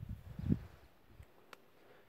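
Footsteps on a dry dirt mountain path: a few low thuds in the first half second.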